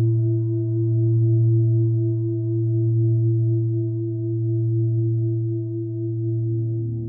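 A long, steady ringing low tone with higher overtones above it, gently pulsing in loudness as it slowly fades. Near the end, other notes of soft ambient music start to come in.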